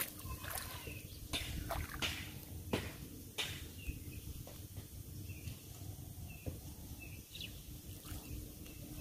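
Small birds chirping in short, repeated high calls, with a few sharp clicks in the first three seconds.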